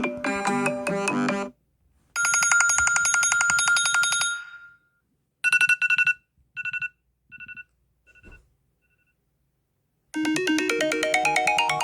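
iPhone 13 Pro Max ringtones played one after another. A melodic tone ends, then comes a fast pulsing tone, then a two-note beep that repeats and fades away like an echo. After a short silence, a new quick-noted ringtone starts about ten seconds in.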